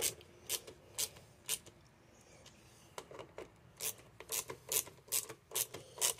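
Hand ratchet clicking as it snugs up small screws: sharp pawl clicks about two a second, with a short pause about two seconds in.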